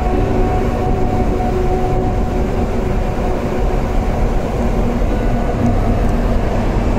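Steady loud low rumble with a faint, even hum over it.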